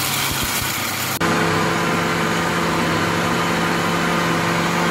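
Philips countertop blender running at full speed, grinding soaked mung beans and water into a smooth purée. About a second in the sound changes suddenly to a steadier, even motor hum with a clear pitch, the blade now spinning through a smooth liquid.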